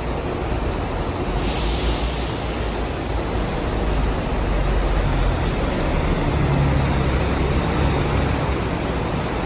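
City buses driving past and pulling in under a covered interchange: a steady low rumble that swells as an articulated bus passes close, about four seconds in. A short hiss sounds about a second and a half in.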